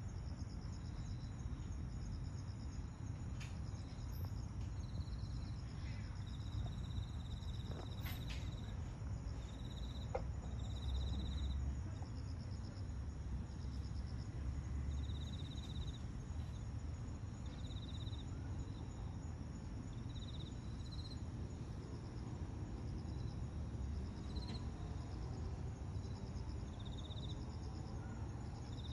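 Night insects chirping: a continuous fast trill and short repeated chirps every second or two, over a low steady rumble, with a few faint clicks.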